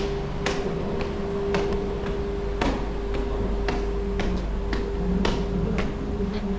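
Footsteps on hard stairs and then a hard floor, about two steps a second, over a steady hum with one held tone.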